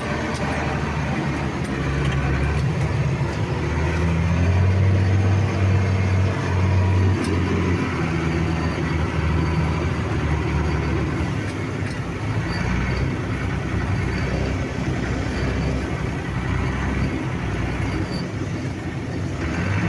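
Tractor and Massey Ferguson 7274 combine harvester engines running steadily side by side while the combine unloads wheat into the trailer, with a deeper low hum swelling a few seconds in.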